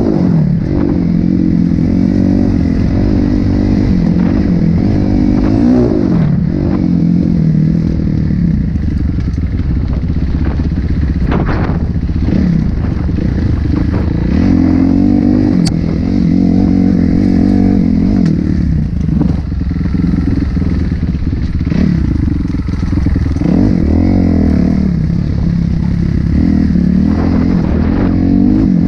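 Dirt bike engine revving up and falling back again and again as it is ridden along a rough dirt trail, with rattles and knocks from the bike over stones.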